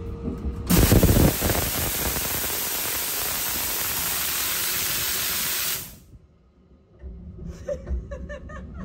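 Sleeper-train shower spray turned on about a second in, running as a loud steady hiss of water, then shut off abruptly about six seconds in.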